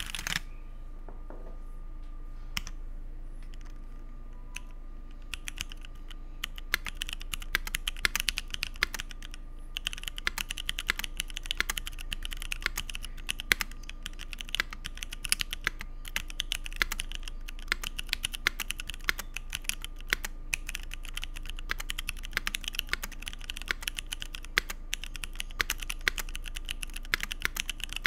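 Typing on a Keycult 1/60 mechanical keyboard with C3 Equalz Dragonfruit tactile switches in an aluminium plate, under GMK keycaps. A few scattered keystrokes, then from about five seconds in a fast, continuous stream of key clacks.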